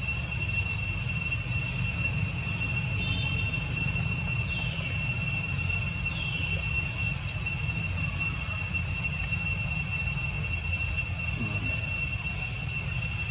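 Insects droning steadily at a high pitch over a constant low rumble, with a few faint short falling calls about three to six seconds in.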